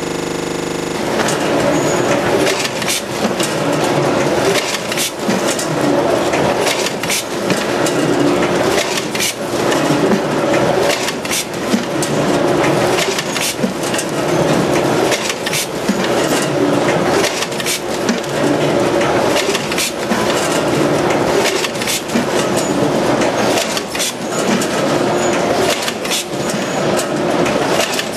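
C-Pack VAC 929 net bagging machine running: a continuous mechanical clatter full of sharp clicks, with a cycle that repeats about every two seconds as filled net bags of fruit are clipped, labelled and dropped onto the conveyor.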